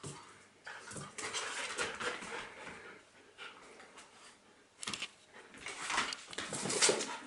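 A Labrador puppy and a Belgian shepherd playing roughly together, making dog noises with scuffling on the floor and rug. There is a sharp knock about five seconds in.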